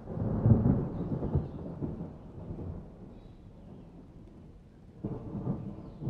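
Rubbing, scraping and dull knocks of hands handling a plastic fan blade hub against the motor. Loudest in the first two seconds, then dying down, with another burst about five seconds in.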